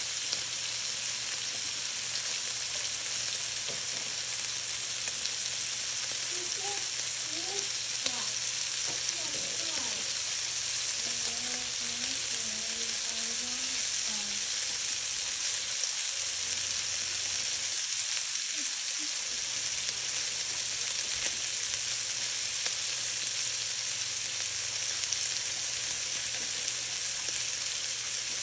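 Bacon pieces frying in a hammered wok: a steady, even sizzle of hot fat.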